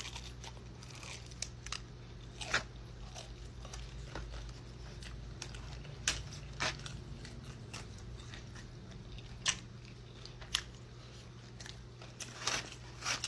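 Close-up chewing and biting into crispy fried chicken, with irregular sharp crunches a second or more apart over a steady low hum.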